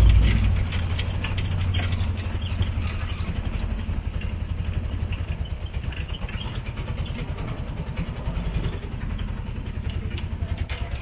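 Tuk-tuk's small engine running as it drives, a fast low putter, loudest right at the start.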